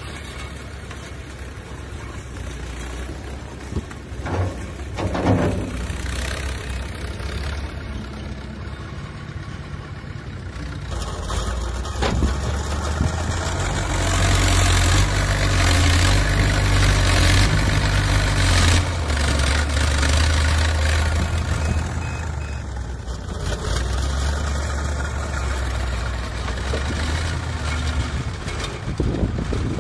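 Backhoe loader's diesel engine working as the front bucket dumps and scoops soil. It runs louder under load for several seconds about halfway through, with a few short knocks in the first half.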